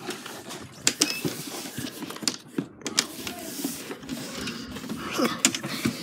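Handling noise from a phone being carried about: irregular clicks, knocks and rustling.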